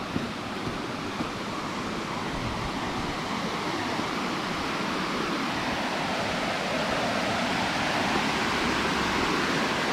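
River water rushing steadily, growing gradually louder.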